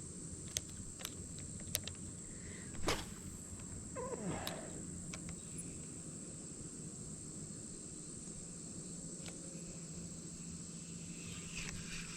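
Steady high-pitched insect drone, with a few sharp clicks in the first three seconds and a short sound falling in pitch about four seconds in.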